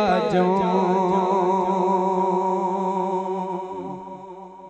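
A man singing unaccompanied into a microphone, holding one long note that wavers at first, then steadies and fades out near the end.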